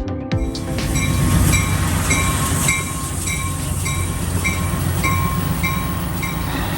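Passenger train rolling along the track: a steady rumble and rattle of the cars, with a short ringing tone repeating a little under twice a second, like a bell.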